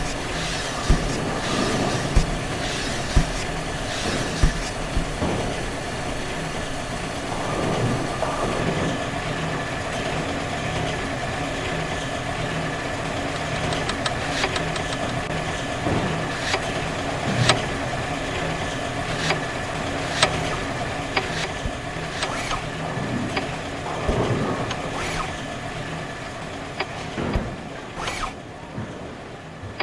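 Bowling-alley pinsetter machinery running with a steady mechanical hum, with pins knocking and clattering against metal. There are four loud clunks about a second apart at the start, then scattered sharper knocks.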